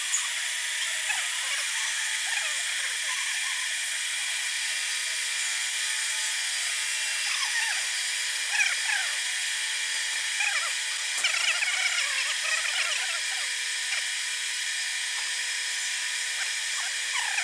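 Boring machine taking a finishing pass with a single-point cutter through a steel connecting rod's small-end bore: a steady machine whine with short squeaky chirps from the cut now and then.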